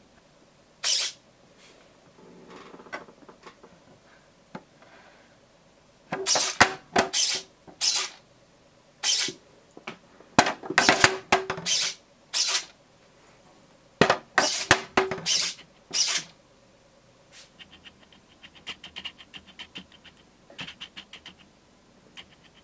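A small hobby servo working a cat-flap door latch, whirring in a series of short, loud bursts as it drives the latch back and forth. Near the end comes a fainter run of rapid ticking.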